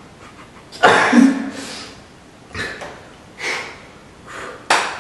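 A man laughing in several short breathy bursts, the loudest about a second in.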